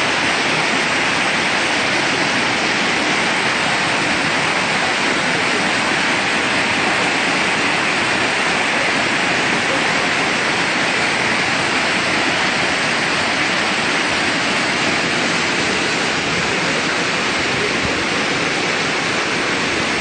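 Waterfall: water falling down a rock face in many strands, a loud, steady rush.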